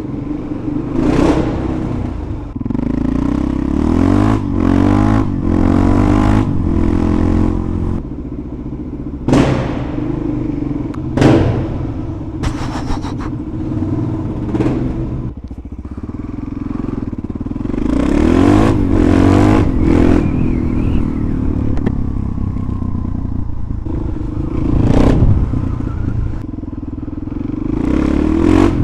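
Suzuki DR-Z400SM's single-cylinder four-stroke engine running through a shortened CRD stubby exhaust can, idling and blipped repeatedly to sharp revs that fall straight back to idle.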